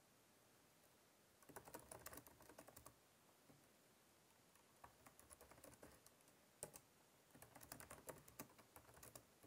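Faint typing on a keyboard: bursts of quick key clicks with short pauses between them, as a line of text is typed.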